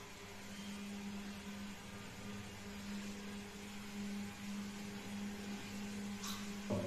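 A steady low machine hum. Over it come a few faint knocks as short PVC pipe pieces are handled, with a slightly louder knock near the end.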